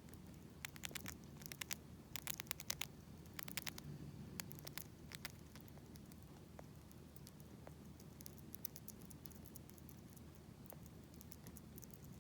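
Siberian chipmunk making runs of fast, faint clicks, several runs in the first five seconds and then scattered ones: its cry when food has stuck in its throat from overstuffing.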